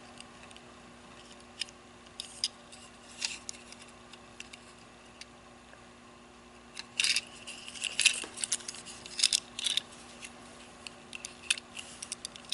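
Two small die-cast toy Batmobiles, a Tomica and a Hot Wheels, handled in the fingers: light scattered clicks and taps of metal and plastic, coming thick and fast from about seven to ten seconds in. A faint steady hum runs underneath.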